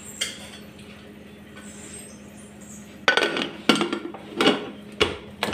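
Metal pressure cooker lid being put on and closed over the pot: several clanks and scrapes of metal on metal, starting about three seconds in.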